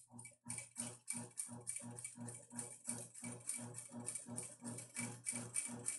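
Sewing machine stitching slowly and evenly through quilted fabric. Each stitch is a short click, about four a second, over the steady hum of the motor.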